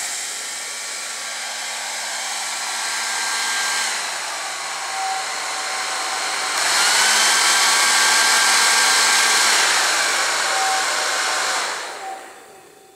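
Hair dryer blowing, its motor whine and air rush shifting between a lower and a higher speed: it steps up and gets louder about halfway through, drops back, then is switched off and winds down near the end.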